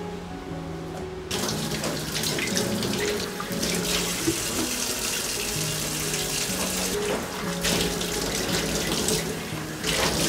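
Water tap running into a sink, turned on about a second in and off near the end, its flow splashing unevenly. Soft background music underneath.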